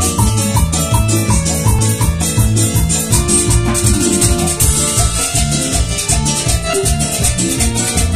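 Live Latin dance band playing an instrumental passage: a Yamaha electronic keyboard carries the melody over a repeating electric bass line and an even, quick percussion rhythm.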